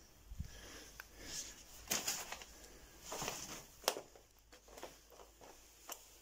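Faint scattered rustling, shuffling and a few sharp clicks and taps: someone moving about a small room and handling loose objects.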